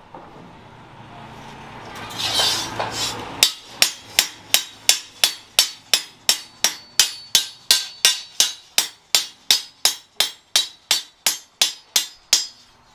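A swelling rushing noise for the first few seconds, then a hand hammer striking a steel sword blade on a small anvil in a steady run of ringing metallic blows, about three a second, stopping just before the end.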